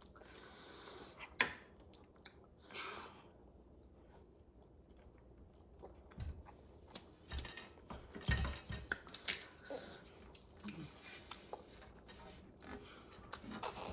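Close-up eating sounds of spicy instant noodles being chewed, with scattered small clicks and a few short noisy bursts.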